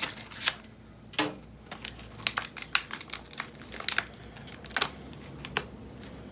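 Small plastic screw-cover caps and their plastic packaging being handled: a run of crinkles and sharp clicks that stops about five and a half seconds in.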